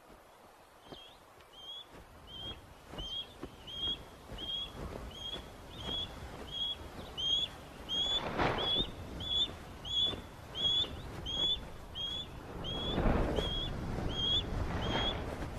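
Osprey giving a long run of short, high whistled chirps, about two a second, the agitated calling of a bird chasing an intruder from its nest site. Two louder rushes of noise come in the middle and near the end.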